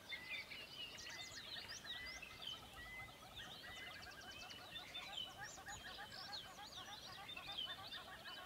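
Faint background chorus of many small birds chirping and twittering, dense and irregular.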